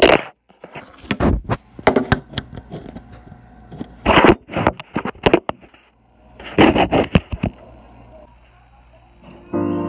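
Scraping, rubbing and knocking handling noise from a phone being moved and a hand brushing right at its microphone, in irregular clusters. Piano music starts just before the end.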